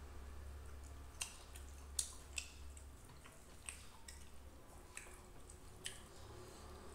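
Eating sounds at a table: about six scattered, sharp clicks and clinks of a metal spoon against a plate, with soft mouth sounds of chewing, over a low steady hum.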